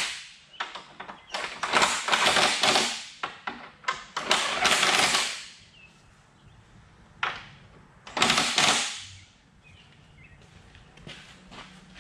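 Cordless impact gun hammering in three bursts of rapid rattling blows, running down bolts on a truck radiator assembly, with a few short clicks between.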